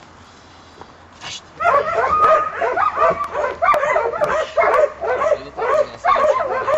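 Puppy giving a quick run of high-pitched whining yips, about three a second, starting about a second and a half in, as it works a padded bite sleeve during bite training.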